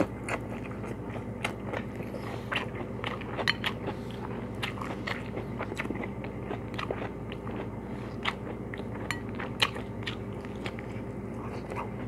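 Close-miked chewing of a mouthful of rice vermicelli, roast pork and salad greens: irregular wet mouth clicks and light crunches.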